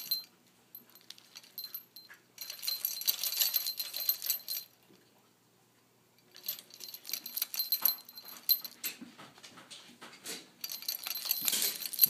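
Hanging parrot toy of plastic chain links and metal pieces jangling and rattling as an Eclectus parrot grabs and shakes it with its beak, in three bursts with short quiet gaps.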